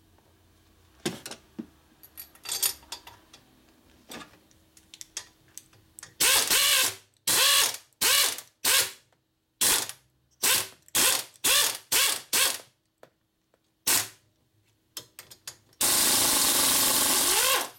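A few light ratchet clicks, then a handheld power ratchet running in about a dozen short bursts, its motor winding up and down each time, and one longer run near the end. It is working fasteners on the top end of a Harley-Davidson Ironhead Sportster engine.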